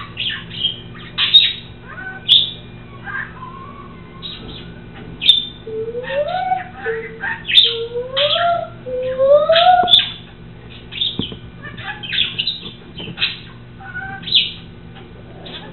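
A bird chirping and whistling: short chirps come on and off throughout, and in the middle there is a run of about four rising whistles. A steady low hum sits underneath.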